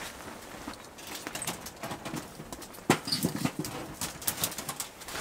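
Hands working at a small wood-burning tent stove: a run of light clicks and knocks from sticks of firewood and the metal stove door, with one sharp knock about three seconds in.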